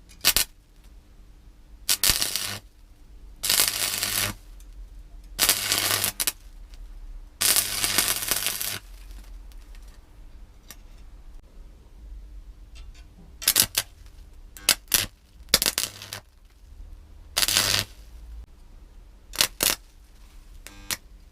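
Stick (arc) welding: the arc is struck again and again, each time crackling and sizzling for half a second to a second and a half before it goes out. In the second half the bursts are shorter and spikier. The arc will not stay lit, which the welder puts down to a poor connection at the crocodile clip.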